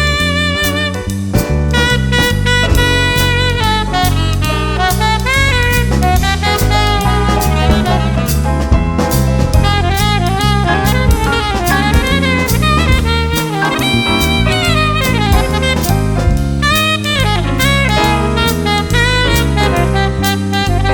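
Jazz band playing: a wind instrument carries a melodic solo line with bends and runs, over a bass and a drum kit with steady cymbal strokes.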